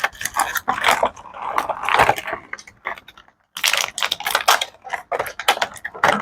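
Toy packaging being handled and opened: irregular crinkling, rustling and small clicks of plastic and cardboard, with a short pause near the middle.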